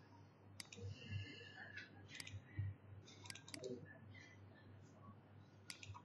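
Computer mouse clicking: about eight sharp clicks in four groups, several in quick pairs, over a faint steady hum.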